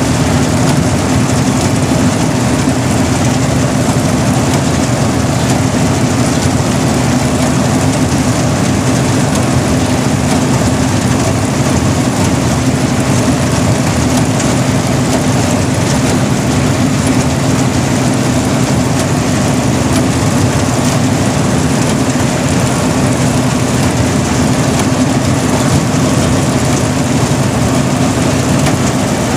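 Engine of a rice-harvesting machine running loud and steady, a constant drone with no change in pitch.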